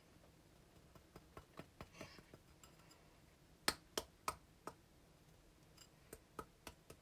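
Faint taps and clicks of a glass being knocked to shake the last of the potato starch out into a bowl: a few light ticks, then four sharper taps in quick succession about halfway through, and a few more near the end.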